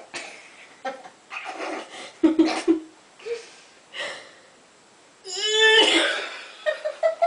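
A person burping on purpose: several short throaty burps, then one long, loud burp about five seconds in.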